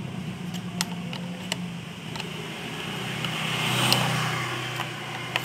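A steady engine hum that swells about four seconds in and then eases off, with scattered light clicks.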